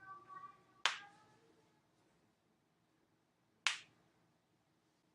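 Two sharp joint cracks from chiropractic adjustments, about three seconds apart: the pop of a joint being manipulated by a chiropractor.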